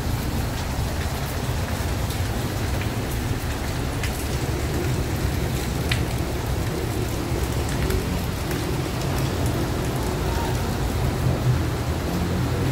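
Torrential tropical rain pouring steadily, with a low rumble underneath and a few sharp ticks of drops.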